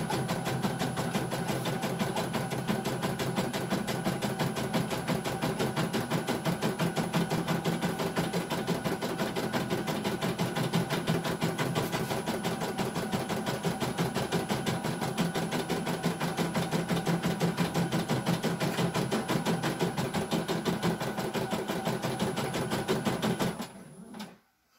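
CNY E900 computerised embroidery machine stitching a design at a steady speed: a fast, even needle-stroke rhythm that stops abruptly about a second before the end.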